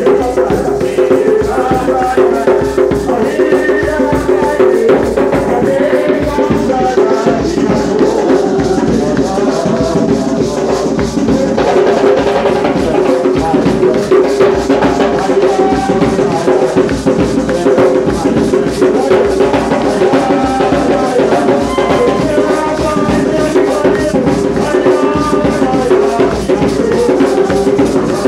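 Hand drums beaten in a steady rhythm with rattles shaking along, and voices singing over them.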